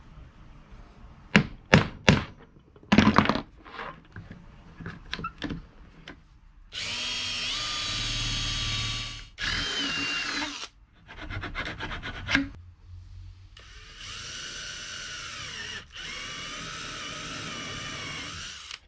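A few sharp knocks on a workbench, then a cordless drill boring holes in metal bar stock. It runs in several bursts with a steady motor whine, the longest running about five seconds near the end.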